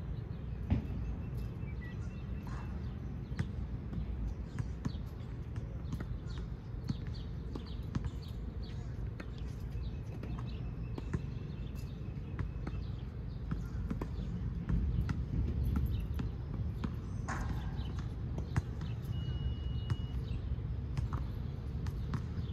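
Irregular knocks and thumps over a steady low rumble, with a few thin high squeaks, one lasting about a second near the end.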